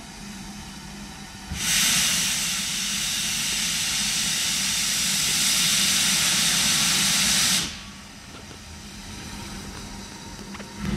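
A railway locomotive letting off a loud, steady hiss for about six seconds. It starts sharply a second and a half in and cuts off suddenly, over a low steady hum.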